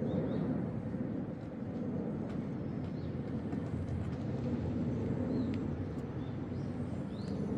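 Outdoor ambience: a steady low rumble with a few short, faint high chirps scattered through.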